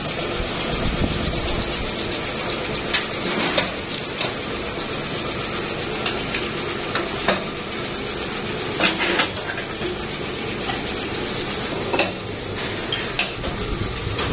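Workshop machinery runs steadily while a steel mould for plastic tap spouts is opened and handled, with irregular sharp metallic clicks and clanks, loudest around the middle and again a few seconds before the end.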